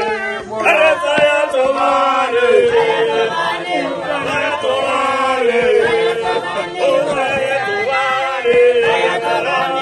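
A group of people singing a chant together in chorus, several voices overlapping in long held notes.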